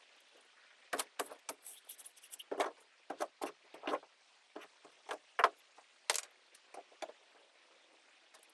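Irregular knocks, clicks and short scrapes of hand tools breaking out rotted stringer wood and foam from a fibreglass boat hull, about a dozen strikes spread unevenly, the loudest about 6 seconds in.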